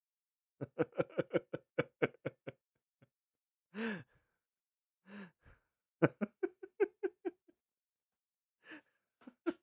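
A man laughing in two bursts of quick, rhythmic chuckles, with sharp breaths drawn in between them.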